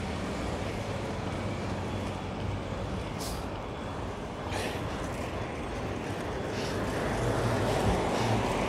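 City street traffic with a heavy vehicle's engine running, two short hisses about three and four and a half seconds in, and the noise growing a little louder near the end.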